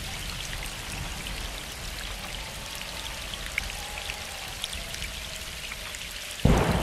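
Steady rain falling, with scattered drop ticks. Near the end a sudden, much louder rush of noise cuts in.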